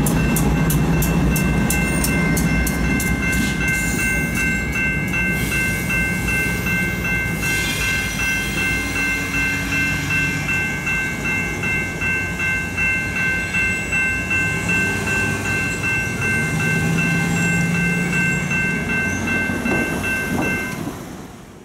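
Railroad crossing bells ringing steadily as a Via Rail passenger train rolls through the crossing, its wheels clicking in an even rhythm over the crossing for the first five seconds or so, over a low rumble. The bells ring on after the train has gone and fade out near the end.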